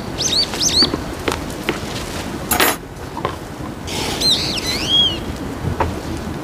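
Small birds chirping: a quick run of short arching chirps at the start and a few more around four to five seconds in, over a steady outdoor hiss. Light clicks and a short rustle from handling the pot and gravel come in between.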